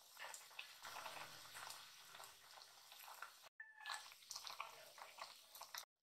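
Faint bubbling and crackling of vinegar broth simmering in a pot of milkfish and vegetables, with many small irregular pops. It cuts out for an instant twice.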